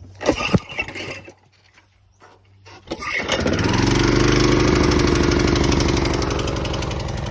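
Push lawn mower's small engine being cold-started with the pull cord: a clattering first attempt near the start, then about three seconds in it catches and settles into a steady run. It starts now that the fuel tap has been turned on, after failing with the fuel off.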